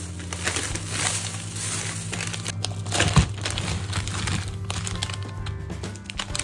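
Plastic packaging crinkling as wrapped food packs are handled, with one sharp knock about three seconds in, over background music.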